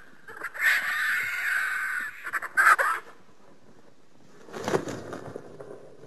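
Sound-effect call for the extinct giant flightless bird Dromornis stirtoni: a loud, harsh call lasting about a second and a half, then two or three short calls, and a lower, shorter call about four and a half seconds in.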